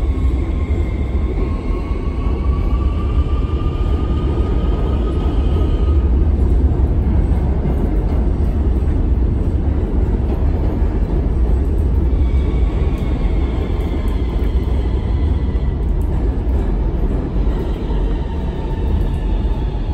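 NYC subway train running through a tunnel, heard from inside the car: a steady low rumble of wheels on the rails, with a high wavering whine that comes and goes.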